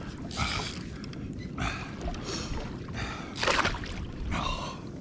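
Water sloshing and splashing around a fishing kayak in about five short bursts, over a steady low rumble of wind on the microphone.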